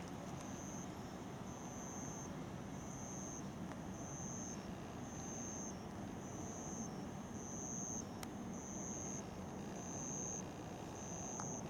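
A high-pitched beep repeating over and over, a bit more than once a second, over a low steady hum.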